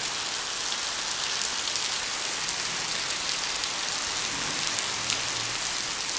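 Rain pouring steadily onto a wet paved yard and puddles, with individual drops ticking close by.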